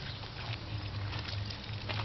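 A steady low hum with a couple of faint clicks or knocks.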